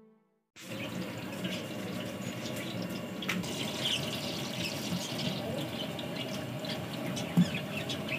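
A steady hiss with scattered light knocks and a few short high chirps, as solid vegetable fat is squeezed out of a plastic packet into a large aluminium cooking pot; one sharp tap stands out about seven seconds in.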